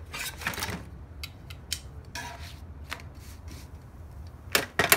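Metal kitchen tongs tapping and scraping on the steel top of a Blackstone 17-inch griddle as a flatbread is turned: a brief scuffing at the start, scattered light clicks, then two sharp clacks near the end.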